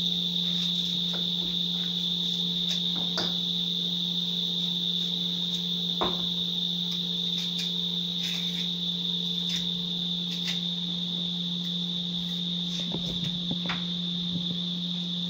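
A cricket chirring continuously at one steady high pitch, over a low steady hum, with scattered light clicks and knocks of kitchen handling.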